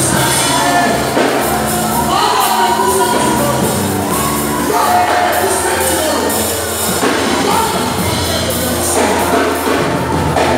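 Live gospel worship music: a lead singer on a microphone and a choir singing over a band with drums and cymbals, at a steady, loud level.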